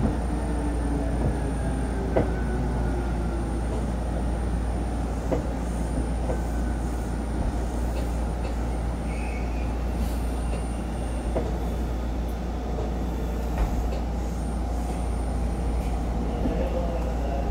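Seibu 10000 series limited express electric train heard from inside the car, running with a steady rumble of wheels on rails. Scattered sharp clicks from the rail joints, and a few tones that glide downward as the train slows toward a station.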